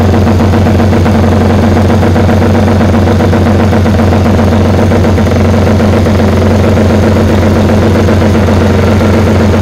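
A 1968 Paton GP 500 BL3 racing motorcycle's twin-cylinder four-stroke engine, warming up at a steady idle through its open megaphone exhausts, loud and even with no revving.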